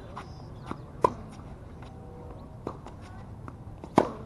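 Tennis ball struck hard by a racket twice, about a second in and again near the end, with a fainter hit from the far side of the court and the ball bouncing between.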